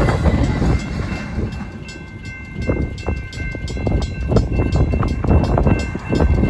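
Railroad crossing bells ringing in rapid, regular strikes, a mechanical bell and an electronic bell together, as the tail of a Union Pacific intermodal stack train rolls through the crossing. The train's low rumble falls away after the first second or two, leaving the bells clearer.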